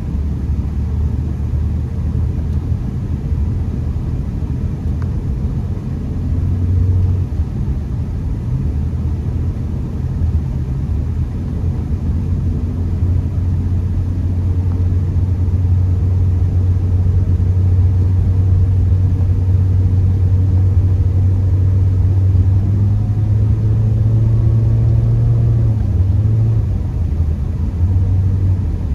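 Honda Accord heard from inside the cabin while driving through snow, a steady low rumble of engine and road noise that grows a little louder about halfway through.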